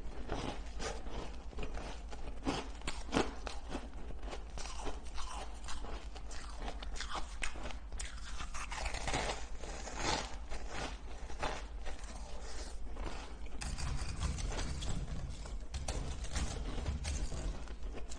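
Shaved ice being bitten and chewed, an irregular string of crisp crunches and crackles.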